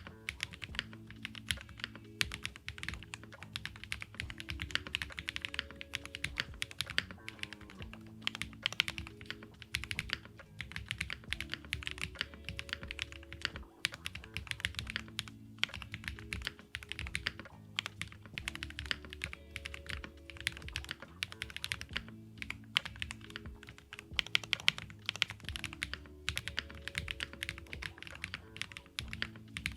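Continuous typing on a GrayStudio Space80 mechanical keyboard with JWK Graphite Gold switches, an FR4 plate, Poron and silicone foam and GMK Apollo keycaps: quick, uneven key clicks several times a second. Lo-fi background music plays quietly underneath.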